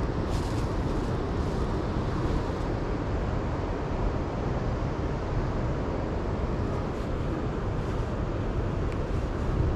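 Steady low rumbling outdoor background noise, with a few faint brief hisses near the start and around seven and eight seconds in.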